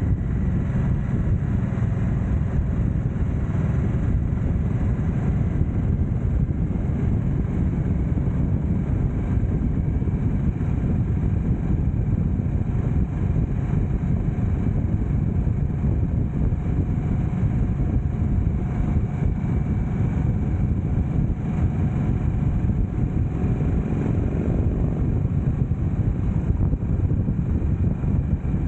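Harley-Davidson Nightster 975's V-twin engine running at a steady cruising speed, heard with wind and road noise rushing over the rider-mounted microphone as a steady low rumble.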